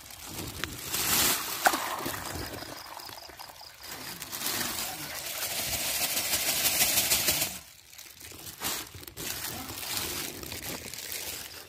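Water pouring and splashing out of a plastic fish-transport bag into a pond as the fish are released. The pour builds, runs strongest for a few seconds, then stops abruptly about two-thirds of the way in, leaving a fainter trickle.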